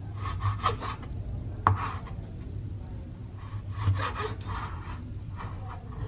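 Kitchen knife slicing raw buffalo meat on a cutting board: short runs of quick rasping strokes, with one sharp knock of the blade on the board a little under two seconds in.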